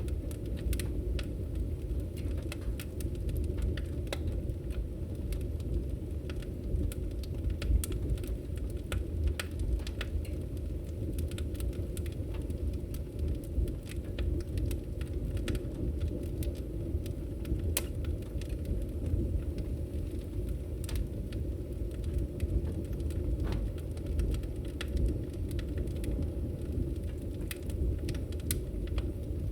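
Wood fire in a fireplace burning with a steady low rumble and irregular sharp crackles and pops.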